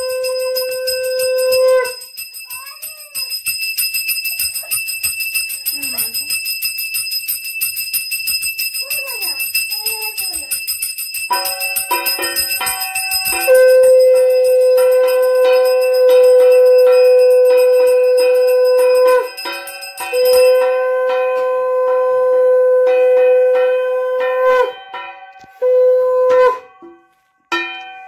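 A conch shell (shankh) blown in long, steady notes for puja. A short blast opens, then several long blasts start about eleven seconds in, over the continuous ringing of a hand-held puja bell. Between the blasts the bell rings on its own, with a few brief wavering vocal calls.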